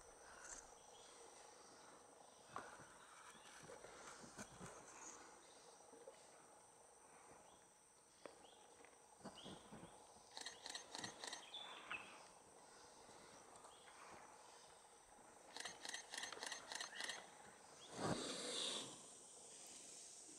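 Faint outdoor natural ambience: a steady high hum, two runs of a rapid repeated call about halfway through and again a little later, and a short rushing noise near the end.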